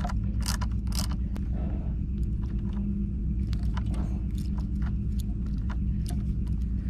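A hand ratchet screwdriver with a Torx bit clicking in scattered, sharp ticks as it backs out the license-plate bracket screws, over a steady low rumble.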